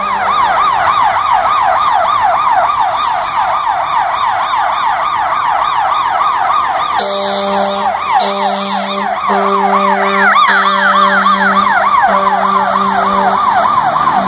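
Fire engine siren on a fast yelp, rising and falling several times a second. From about halfway in, the fire engine's horn blares in repeated blasts over it, and a second, quicker siren overlaps briefly after about ten seconds.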